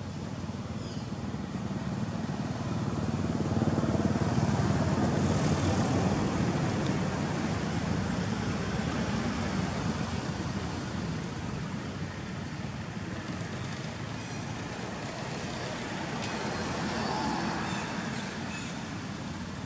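Motor vehicle traffic passing by: a rumbling engine-and-road noise that swells over a few seconds, then slowly fades, with a second, fainter pass near the end.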